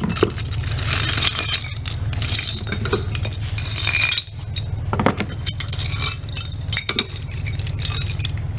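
Loose metal cement anchors clinking and rattling against each other as they are handled and stirred, many small sharp clinks throughout, over a steady low hum.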